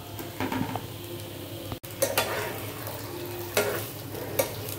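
Sweet potato slices sizzling in ghee in a nonstick frying pan while a spatula stirs and turns them, scraping against the pan. The sound cuts out for an instant just under two seconds in.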